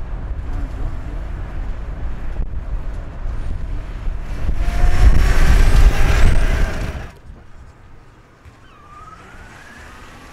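Wind buffeting and road rumble while filming the electric motorbike from a moving vehicle, growing loud for a couple of seconds as the bike comes close, with rising whines in the noise. It cuts off abruptly about seven seconds in to a much quieter roadside scene, where the electric motorbike's motor whine rises faintly as it approaches.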